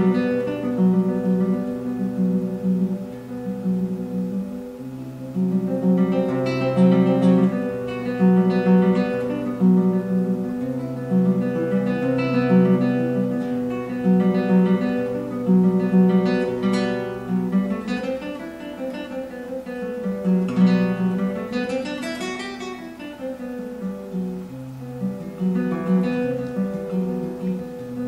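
Classical guitar played solo: fingerpicked melody and chords over a low note repeated at an even pulse.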